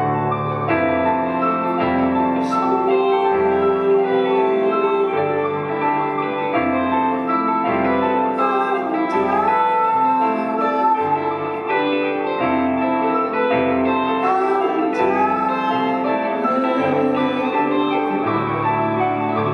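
Slow live band music led by piano chords, with sustained keyboard tones over a low bass line that moves about once a second.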